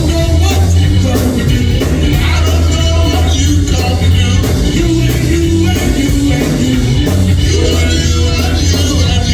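Live church band music with a heavy bass line and regular drum beats.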